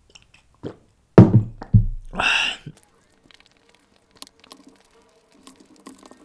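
Close-miked mouth sounds of drinking: two loud gulps about a second in, followed by a breathy exhale, then only faint clicks and chewing as a chicken drumstick is bitten into.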